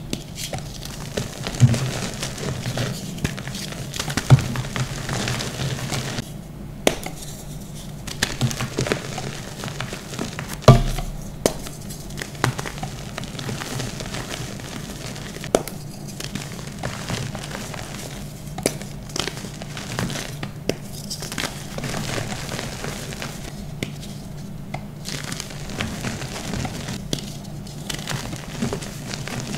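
Dusty dyed gym chalk blocks crushed and crumbled by hand: dry, irregular crackling and crunching as the chalk breaks apart, with one sharp loud snap partway through.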